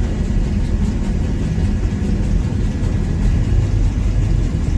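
Sugar beet piler conveyors and a beet truck's engine running together: a steady, even low rumble of heavy machinery.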